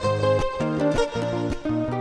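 Two acoustic guitars playing an instrumental passage, picking a melody over chords with regular plucked note attacks.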